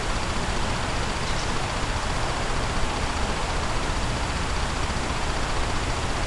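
Steady background noise: an even rushing hiss with a low rumble underneath, unchanging throughout, with no distinct knocks or clicks.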